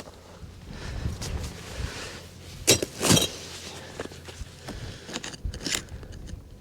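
Knocks and clatter of gear being handled, with two sharper knocks about halfway through, over a low steady rumble.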